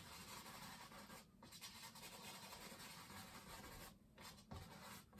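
Faint scratchy brushing of a fan brush worked in small circular strokes over a wet oil-painted canvas, with a couple of brief pauses.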